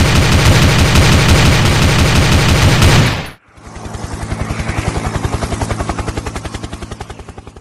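Loud, rapid machine-gun-like rattle of a title sound effect that cuts off abruptly a little over three seconds in, followed by a helicopter's rotor chopping in a fast, even beat that swells and then fades away.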